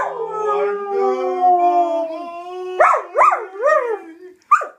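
Samoyed howling: one long, slowly falling howl, then three short rising-and-falling howls about three seconds in and one more just before the end.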